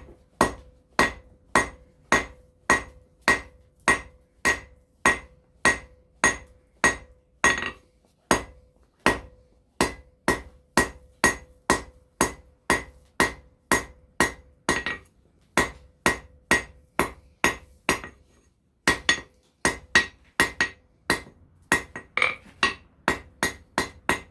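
Hand hammer striking a bar of hot steel on an anvil in a steady rhythm of about two blows a second, each blow with a short metallic ring, as a round point is drawn out on the bar. The hammering breaks off briefly about three-quarters of the way through, then carries on.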